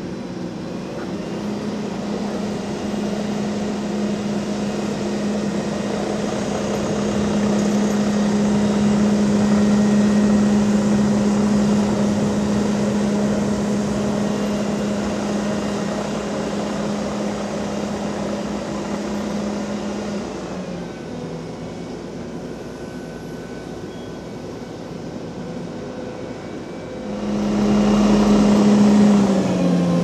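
Heavy diesel road-construction machinery running with a steady droning hum. It grows louder toward the middle and drops away about two-thirds through. A second machine's drone swells near the end, and its pitch drops slightly.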